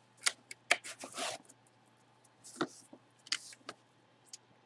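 A few sharp clicks and short scratchy strokes about a second apart, one a little longer: a felt marker being handled and tried on a surface, not writing well.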